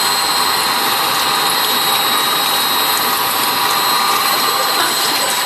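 Sludge dewatering press running: a steady mechanical hiss and drone with high, steady whining tones.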